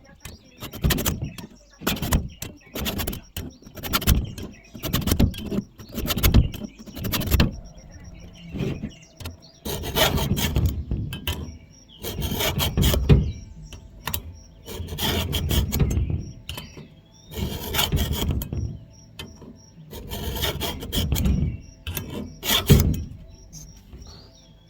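Hand file rasping across the cutter teeth of an electric chainsaw's chain, with short strokes about once a second at first and then slower, longer strokes with pauses between them.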